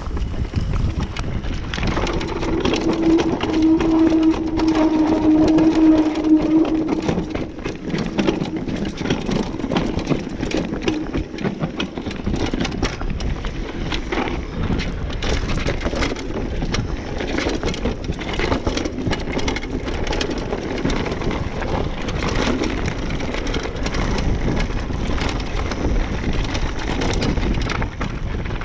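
Mountain bike riding down a rough dirt and gravel trail: a continuous low rumble from the tyres, with dense irregular clicks and rattles from the bike over stones and roots. A steady hum sounds for a few seconds early in the ride.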